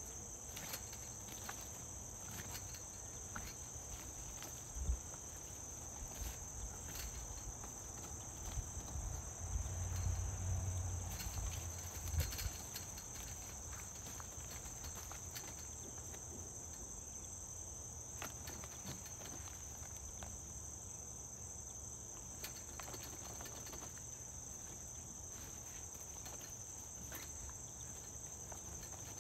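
Insects chirring in a steady, high-pitched chorus. Scattered faint clicks sit under it, a low rumble swells about ten seconds in, and there are two short thumps, one about five seconds in and one about twelve.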